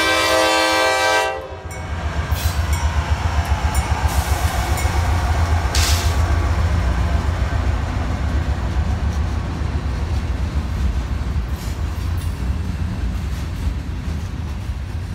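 Freight train diesel locomotive horn chord sounding for about the first second and a half, then cutting off abruptly. The lead diesel locomotives then pass close by with a deep pulsing engine rumble, followed by covered hopper cars rolling past with wheel clatter on the rails and a couple of sharp clanks.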